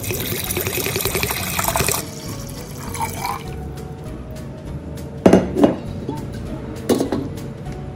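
Water poured from a glass jug into an empty stainless-steel electric kettle, splashing loudly for the first two seconds, then trailing off. A few short knocks follow about five and seven seconds in.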